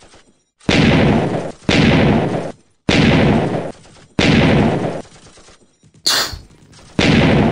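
Gunfire sound effects in five bursts of just under a second each, spaced about a second apart, with a short sharp hiss-like burst about six seconds in.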